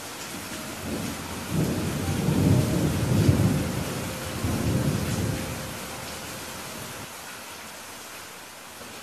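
Thunderstorm: rain hissing steadily, with a long roll of thunder that builds about a second and a half in and rumbles away over the next few seconds.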